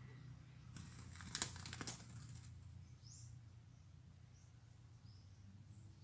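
A white-eared brown dove's wings flapping in a quick run of beats lasting about a second and a half, with a few faint, short, high chirps of small birds.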